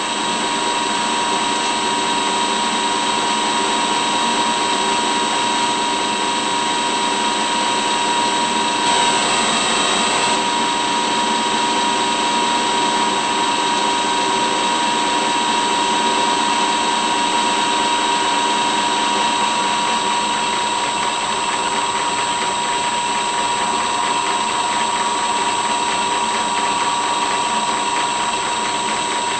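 Metal lathe running on a variable-frequency drive, taking a roughing turning cut about 40 thousandths a side on a short bar in a collet chuck. It gives a steady motor and gear hum with a high, steady whine, and rises briefly about nine seconds in.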